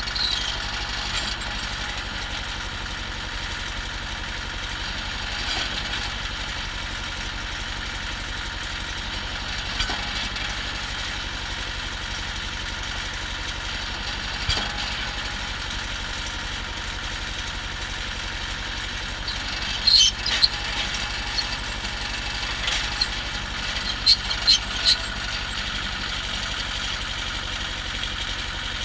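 Cable percussion drilling rig's engine running steadily, with occasional short sharp clicks and knocks over it, several in quick succession in the second half.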